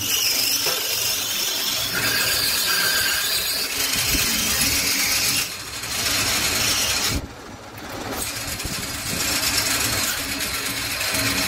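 Metal lathe turning a cast aluminium basin tap body, the cutting tool shaving the spinning casting with a steady, hissy machining noise. It dips briefly twice, about five and a half and seven seconds in.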